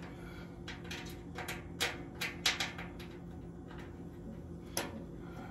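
Small clicks and taps of a nut, screw and cap being handled and fitted through the holes of the interlock plate on the steel electrical panel, with a cluster about two seconds in and one more near the end. A faint steady hum runs underneath.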